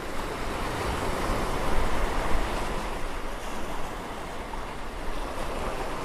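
Ocean waves washing on a shore, a steady hiss that swells about two seconds in and then eases back.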